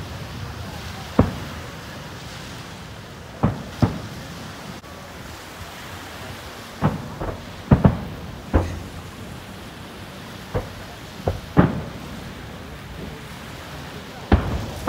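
Aerial firework shells bursting: about a dozen sharp booms at irregular intervals, several in quick succession around the middle, over a steady background rush.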